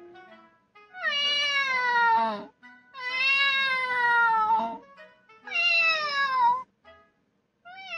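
Three long domestic-cat meows, one after another, each falling gently in pitch, played as recordings through the Fire tablet's speaker as Alexa's cat-language reply.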